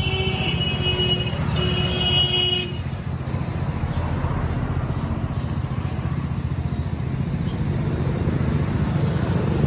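A vehicle horn sounds twice in the first three seconds, each toot about a second long, over a steady low rumble of road traffic.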